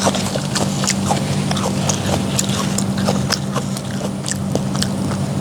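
Crisp, irregular crunches of someone biting and chewing a fresh apple, over a steady low hum.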